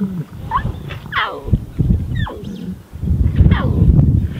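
Lion cubs calling for their mother: about four high mewing calls, each sliding steeply down in pitch. A low rumble grows loud under them near the end.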